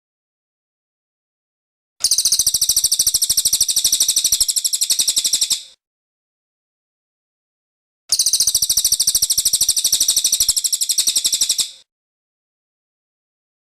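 Cililin bird singing in full voice: two bouts of a few seconds each, made of rapid, high, sharp chirping notes in quick succession, with dead silence between them.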